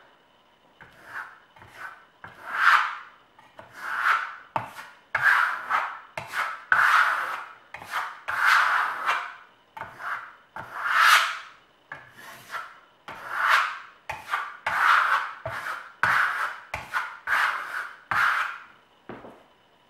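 Steel plastering trowel scraping pearlescent decorative coating across a sample board in repeated sweeping strokes, about one swish a second.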